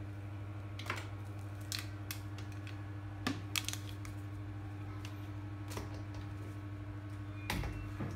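Scattered light clicks and knocks of handling, about eight in all and loudest near the middle and near the end, over a steady low electrical hum.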